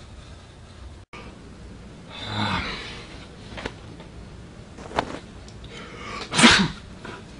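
A person blowing their nose hard into a tissue once, about six and a half seconds in. A softer breathy swell comes about two seconds in, and a couple of small clicks come before the blow.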